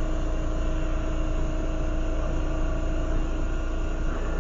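Steady mechanical hum and rumble of running workshop equipment, with a constant humming tone; a higher tone in the hum stops about three seconds in.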